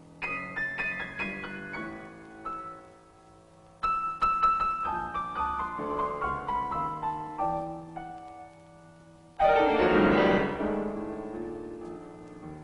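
Solo grand piano playing: short phrases and falling runs of notes, then, about three seconds before the end, a loud, dense chord struck and left to ring away.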